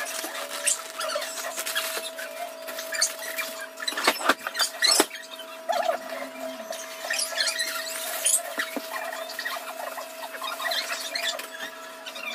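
Kitchen sounds played back at five times speed: rapid high chirpy squeaks and clicks over a steady hum, with a cluster of sharper clicks about four to five seconds in.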